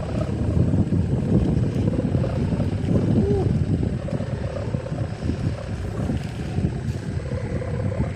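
Strong gusting wind buffeting the microphone as a loud, uneven rumble, with a faint wavering hum above it.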